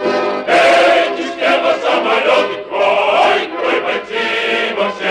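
Background music: a choir singing in long sustained phrases.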